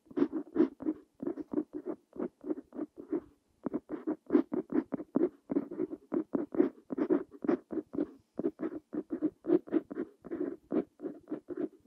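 Parker Jotter fountain pen's steel nib scratching on paper while handwriting Korean letters: a quick, irregular series of short scratchy strokes, several a second, with brief pauses between them.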